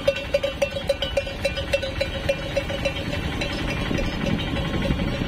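Bells on the necks of walking cattle clanking in step with the animals, one ringing note struck over and over, several times a second.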